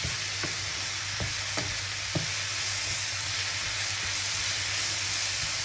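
Sliced mushrooms and onions sizzling steadily in a frying pan as they sweat, while a wooden spatula stirs them, knocking lightly against the pan a few times in the first couple of seconds.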